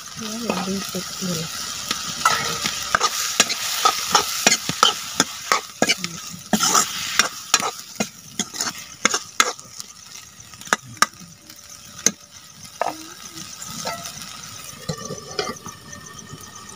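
Steel ladle stirring and scraping frying tomatoes and neem leaves in a metal kadai, with many sharp clinks of metal on metal over a steady sizzle.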